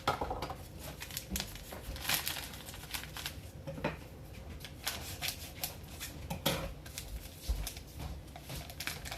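A packet of pudding mix being handled and opened: irregular crinkling and rustling of the packaging with scattered small clicks and knocks.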